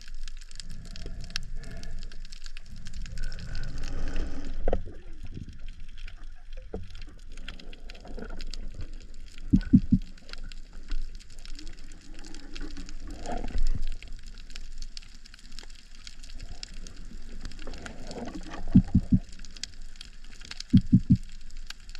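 Underwater sound recorded through a camera housing while a spearfisher swims over seagrass: a steady rushing of water with faint crackling. Short clusters of low knocks come twice, about ten seconds in and near the end.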